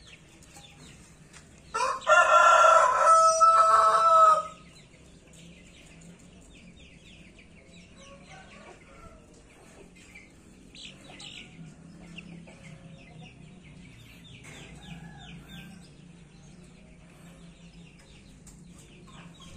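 A rooster crows once about two seconds in, a loud call lasting about two and a half seconds that ends on a held note. Faint, quick chirps of small birds or chicks follow.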